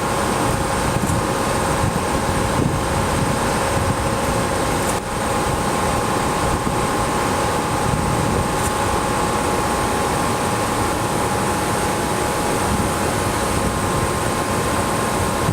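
Ex-Seibu 301 series electric train standing with its onboard auxiliary equipment running: a steady hum and hiss with several constant whining tones.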